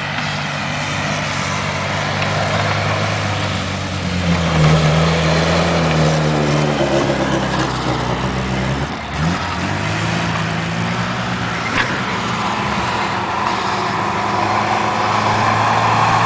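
Off-road 4x4's engine running under load as it climbs a slope, rising in pitch about four seconds in, dipping briefly about halfway through, then pulling steadily again.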